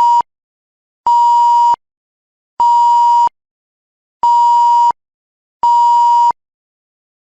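Censor bleep sound effect: a steady high-pitched beep tone in short beeps of about two-thirds of a second each. The tail of one beep is heard at the start, then four full beeps follow at even spacing, about one and a half seconds apart.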